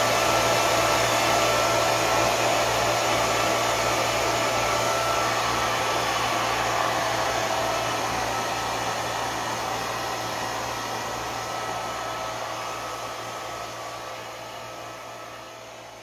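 Old handheld hair dryer running steadily, a constant rush of blown air over a motor hum, as it dries curly hair at the roots. The sound fades gradually over the second half.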